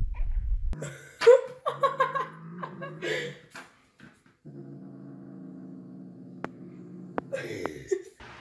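Calico cat growling while guarding a small metal tin held in its mouth: a few wavering yowls at first, then a long, steady low growl. A few sharp clicks come near the end.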